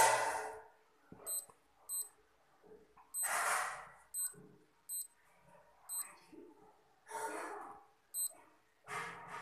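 Sonata SF Extreme digital watch beeping as its buttons are pressed: about eight short, high, identical beeps, irregularly spaced. Three louder noisy bursts come in between.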